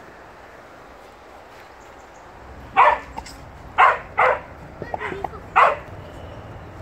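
A dog barking: four loud, sharp barks in the second half, with a few softer yips between the last two.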